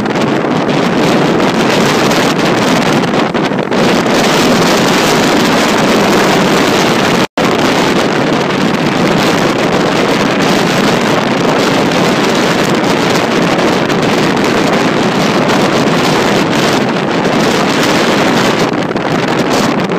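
Steady wind rushing over the microphone of a camera carried in a moving vehicle, mixed with road noise. It cuts out for an instant about seven seconds in.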